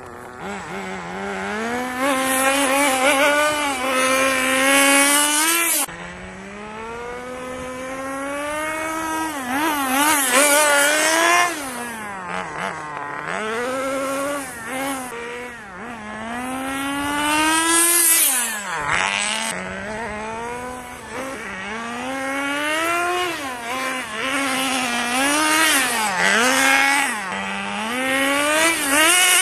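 Nitro glow engine of a 1/10-scale RC Willys 4x4 running laps, a high-pitched buzzing whine that revs up and drops back over and over as the throttle is worked through the corners, louder and fainter as the car comes near and goes away.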